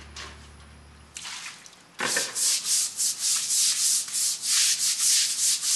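Stiff push brooms scrubbing a floor: one scraping stroke a little over a second in, then brisk, loud back-and-forth strokes at about three a second from about two seconds in.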